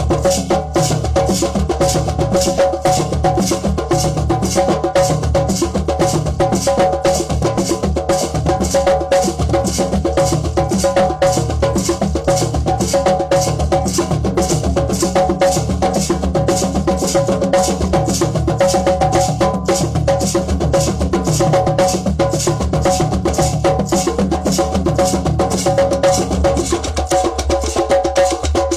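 Drum circle of hand drums and hand percussion playing a dense, steady rhythm of sharp strikes. The deep drum strokes drop out near the end while the lighter, higher percussion carries on.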